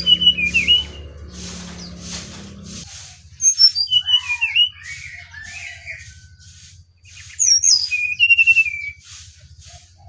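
Brown-chested jungle flycatcher (sikatan rimba dada coklat, SRDC) singing three phrases of clear, mostly falling whistles and warbled notes, with pauses between them. Behind the song is a regular pulsing hiss about twice a second, and a low hum that cuts off about three seconds in.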